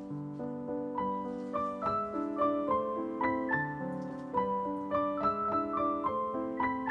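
Background piano music: a gentle tune of struck single notes over chords, several notes a second.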